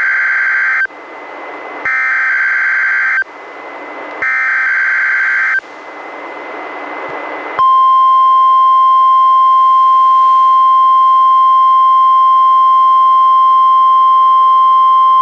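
NOAA Weather Radio required weekly test picked up on a weather radio: three Emergency Alert System header data bursts about a second apart, with radio hiss rising in the gaps. Then, about seven and a half seconds in, the steady single-pitch 1050 Hz warning alarm tone begins and holds.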